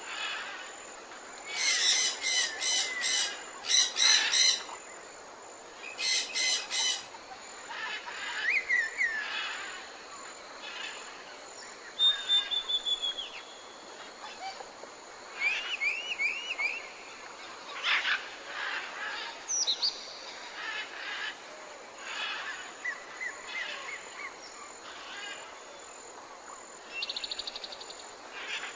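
Tropical jungle bird chorus: many birds calling over a steady background hiss, with loud rapid chattering phrases in the first seven seconds, then scattered whistled slurs and short trills, and a fast buzzy trill near the end.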